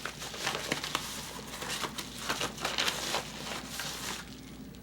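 Packaging crinkling and crackling in irregular bursts as it is handled and opened, easing off near the end.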